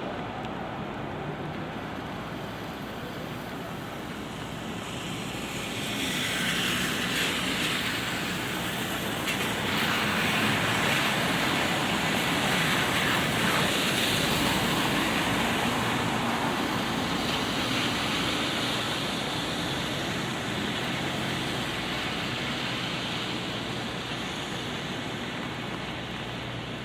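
City traffic in light rain: tyres hissing on a wet road, swelling from about six seconds in as vehicles pass, loudest in the middle and slowly fading toward the end, over a steady patter of rain.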